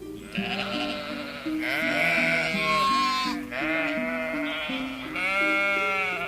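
Sheep bleating: a series of long, wavering bleats, about four in a row, over light background music with a plucked, stepping melody.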